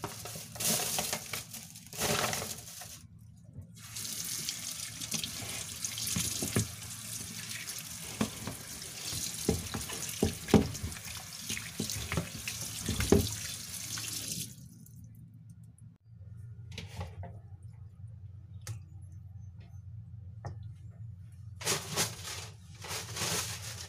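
Kitchen tap running into a stainless steel sink while a whole raw chicken is rinsed and rubbed by hand in a bowl. The water comes in short spurts at first, then runs steadily until it stops a little over halfway through. A few light clicks and knocks follow.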